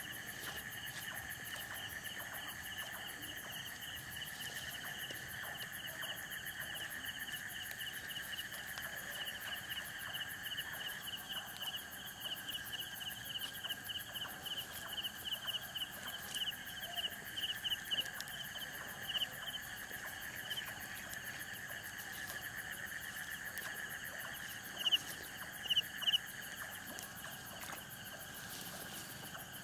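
Night-time insect chorus: steady high trilling at two pitches, with one caller pulsing louder midway and a few loud, close chirps near the end.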